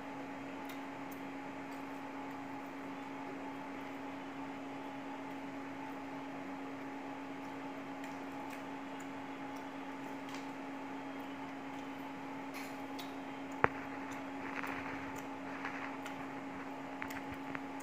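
Steady hum of a running appliance, with faint scattered clicks from rice and curry being mixed and eaten by hand off china plates, and one sharp click about three-quarters of the way in.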